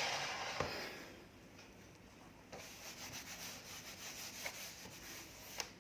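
A scratchy rubbing sweep that fades over the first second, then a run of faint, short scratchy strokes of writing by hand.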